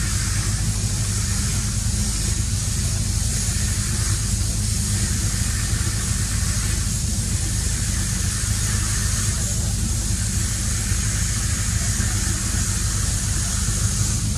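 Steady low hum under a constant hiss, engine-like, with no distinct events.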